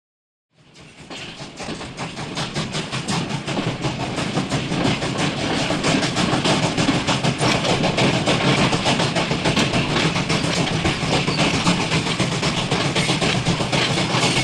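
Train running on the rails, its rapid clickety-clack fading in from silence and growing louder over the first few seconds, then holding steady.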